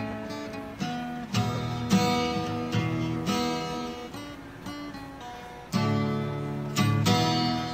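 Background music: acoustic guitar picking and strumming chords.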